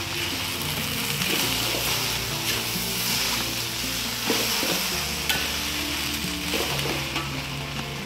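Food sizzling steadily as it fries in a hot pan, with a couple of sharp clicks about four and five seconds in. Background music plays underneath.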